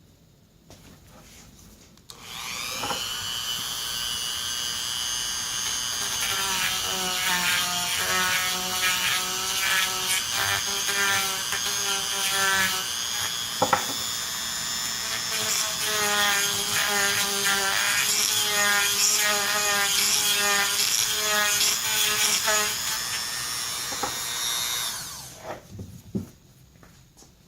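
Dremel rotary tool spinning up with a rising whine and grinding out the inside of a 1/2-inch PVC T connector. Its high whine wavers as the bit bites into the plastic, and it winds down near the end.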